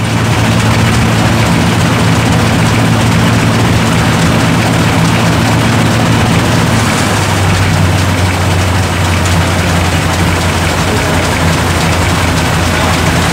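Large antique tractor engine running steadily with a low, even beat. Its note changes about seven seconds in.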